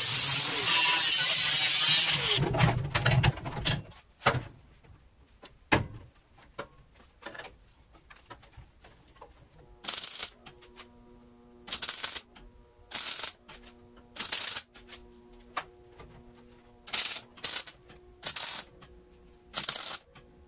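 Angle grinder cutting thin sheet steel, then winding down about two seconds in. After a few quieter seconds with scattered clicks, a run of short crackling MIG tack welds on the thin sheet metal starts about ten seconds in, each weld a brief burst.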